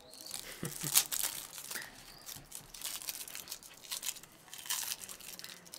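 Packaging crinkling and rustling in hands, with irregular sharp crackles, the loudest about a second in, as a packaged drink is unwrapped and opened.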